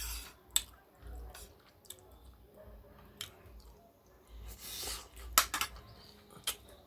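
Someone eating a plate of curry fish and rice and peas: chewing, with several sharp clicks of cutlery against the plate.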